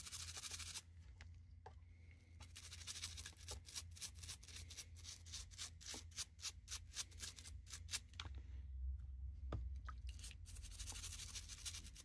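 Toothbrush bristles scrubbing a Swiss Army knife's wet metal tangs and back, in quick, faint, scratchy back-and-forth strokes, with a brief pause about two-thirds of the way through.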